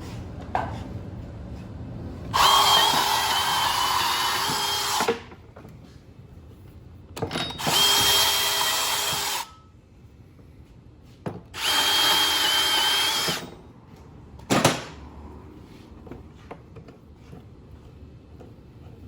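A power drill drives a wire-stripping machine in three runs of about two to three seconds each, its motor holding a steady whine while cable is fed through. A sharp clack follows the third run, with small knocks of handling between runs.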